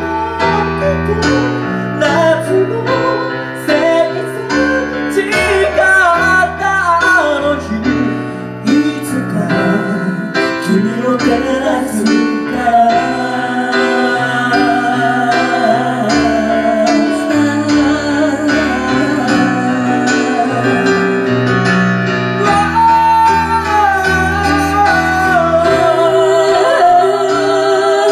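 A male and a female singer singing a slow ballad as a duet, accompanied by a grand piano.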